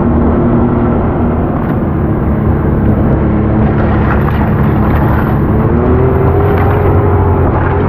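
Side-by-side UTV engine running under way on a trail, heard from the driver's seat. It runs steadily, then rises in pitch about six seconds in as it speeds up.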